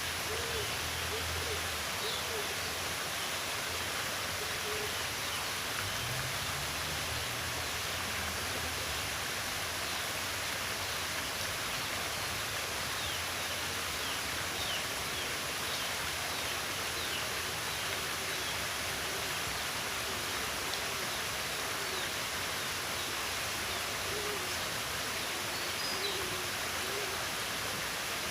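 Nature ambience: a steady rushing noise, like flowing water, with runs of low hooting bird calls near the start and again near the end, and faint high chirps in between.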